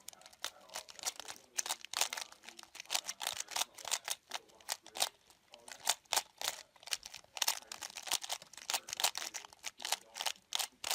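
3x3 puzzle cube being turned quickly by hand in a solve: plastic layers clicking and clacking in fast, irregular runs of several turns a second.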